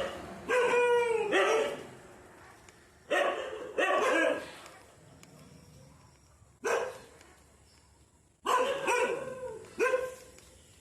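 A dog barking repeatedly: about eight barks in ones and twos, with pauses of a second or two between them.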